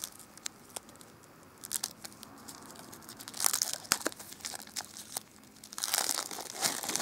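Thin clear plastic wrapping crinkling and tearing as it is peeled off pink bath-bomb eggs by hand, a scatter of small crackles with two louder spells of crinkling, one about halfway through and one near the end.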